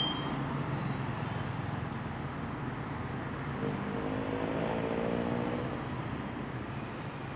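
Street traffic noise, with a motorcycle engine passing close about halfway through, its note rising and fading over a couple of seconds.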